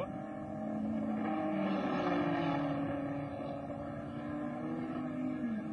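Open-wheel racing car engine running hard, its pitch sinking slowly and then dropping quickly near the end as the car goes by.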